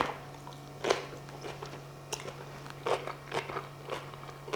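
A person chewing a mouthful of salad with crispy fried onions, with short crunches and mouth clicks about once a second over a steady low hum.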